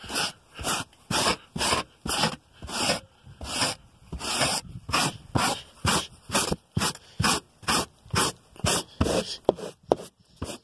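Soft-to-medium bristle brush scrubbing car carpet in quick back-and-forth strokes, about three a second.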